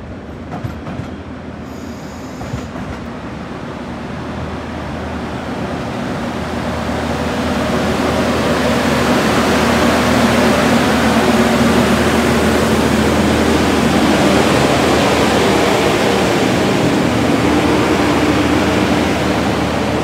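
VolkerRail on-track maintenance machine DR75503 running slowly along the platform line, its engine hum and wheel noise growing louder over about the first eight seconds, then holding steady as it draws alongside.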